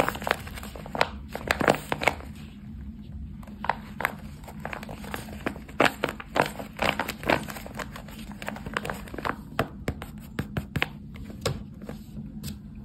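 A paper squishy wrapped in clear tape being squeezed and pressed by hand, its paper and tape crinkling and crackling irregularly, several crackles a second. The crackling stops near the end as the hands let go.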